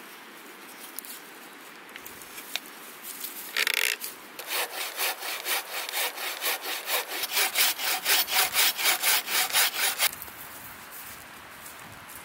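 Folding hand saw cutting through a fallen branch. One short rasp comes first, then a fast run of back-and-forth strokes, about three a second, that grow louder and stop abruptly about two seconds before the end.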